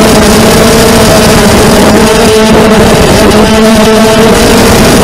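250-size FPV racing quadcopter's brushless motors and propellers whining steadily, heard loud and close from the onboard camera, the pitch wavering slightly with throttle.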